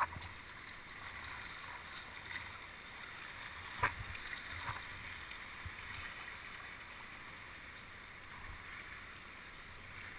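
Water sloshing and lapping around a sea kayak on the swell, with a few light knocks, the loudest about four seconds in.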